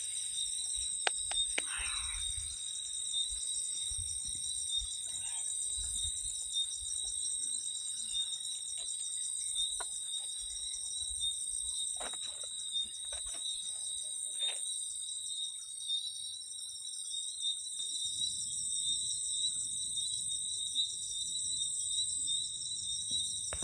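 Night insect chorus: steady high-pitched trilling in several pitches, one of them pulsing rapidly. A few sharp clicks and knocks come over it, mostly in the first half.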